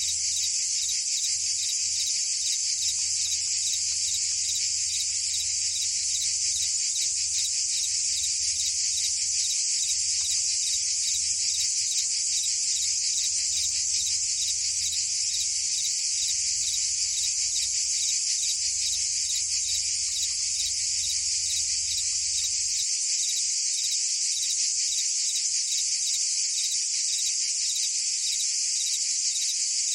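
Steady, high-pitched chorus of cicadas and crickets, a dense shrill buzz with a fine, fast pulsing and no breaks.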